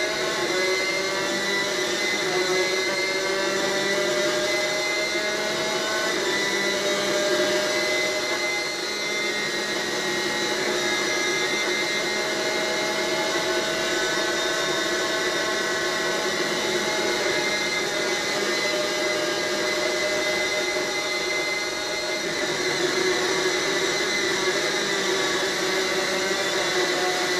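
Two-stroke superkart engine at racing revs, heard from the kart itself, its buzzing note climbing in pitch through the gears over several seconds and dropping back a few times as the kart slows for corners. It sounds thin, as if played back through a television speaker.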